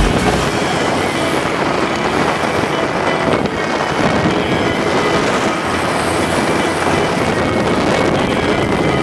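Quad bike driving fast over sand dunes, heard from a camera mounted by its front wheel: a steady, rough engine and chassis rumble with no clear pitch.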